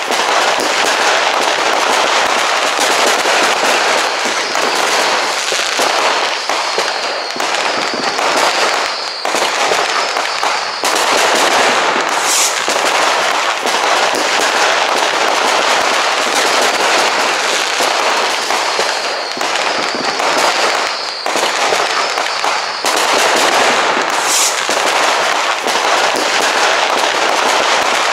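New Year's Eve fireworks and firecrackers going off all around in a dense, unbroken barrage of cracks and bangs. High whistles sound twice in the middle of it.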